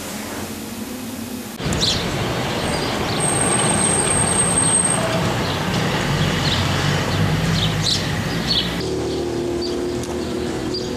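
Outdoor street ambience: a steady rush of traffic noise with birds chirping now and then. It starts abruptly about a second and a half in, after a quieter stretch of room tone.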